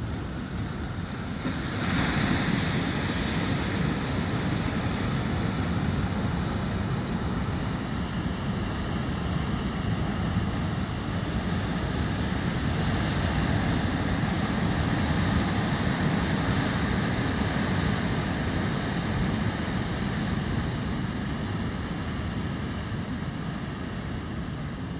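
Steady rushing noise of wind buffeting the microphone outdoors, growing louder about two seconds in.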